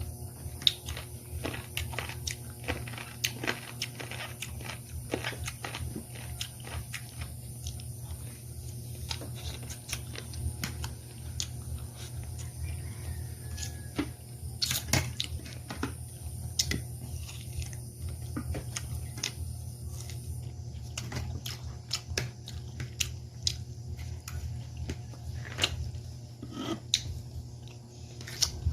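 A person chewing and biting food close to the microphone, with many short crunches and clicks over a steady low hum.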